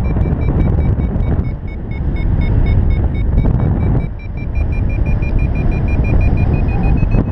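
Paragliding variometer beeping, about four to five short beeps a second, its pitch rising over the last few seconds: the climb tone of a glider going up in lift. Heavy wind rumble on the microphone runs underneath and is the loudest sound.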